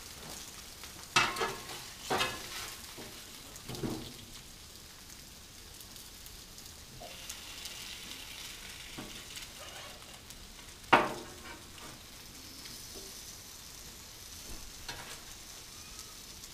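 Potatoes sizzling steadily on a Blackstone flat-top gas griddle, with a metal spatula clanking sharply against the steel cooktop a few times; the loudest clank comes about two-thirds of the way through.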